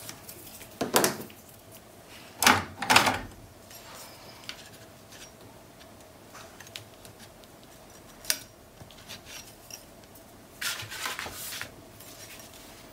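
Paper and small craft tools being handled on a cutting mat: a few short rustles and light knocks with quiet between them, the loudest around two to three seconds in.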